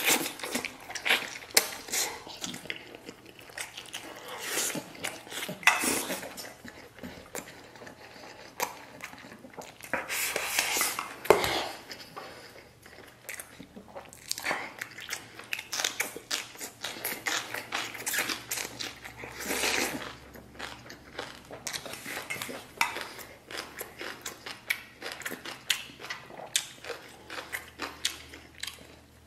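A person eating close to the microphone: biting and chewing mouthfuls of stewed fatty pork belly, sauerkraut and rice, with many short clicks of wooden chopsticks against a steel bowl.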